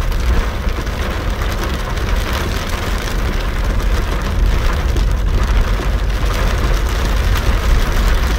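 Heavy rain pelting on a car's roof and windscreen, heard from inside the cabin over the low, steady rumble of the engine driving slowly.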